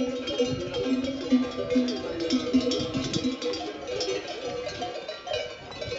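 Many sheep bells on a grazing flock clanking and ringing together in an irregular jumble of overlapping tones.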